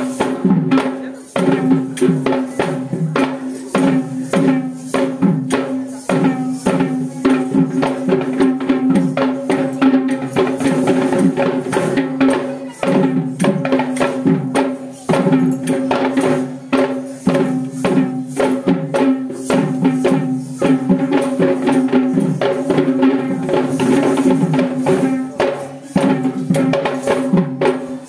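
Kandyan dance drumming: rapid, continuous drum strokes in a fast rhythm, over a steady held note.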